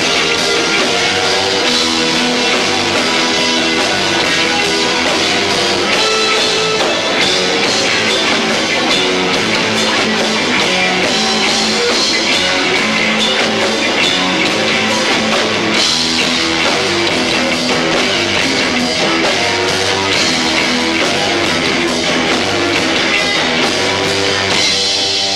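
Live rock band playing at full volume: distorted electric guitar, bass and fast, dense drums, recorded through a camcorder's built-in microphone, low-fi and crowded.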